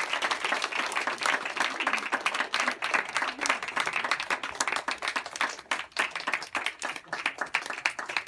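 A small audience applauding, many hands clapping densely and steadily.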